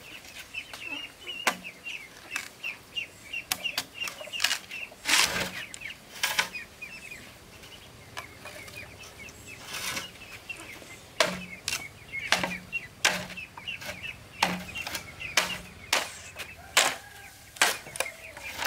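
Machete chopping at a green bamboo pole: sharp, irregular strikes, some in quick pairs, with chickens chirping in the background.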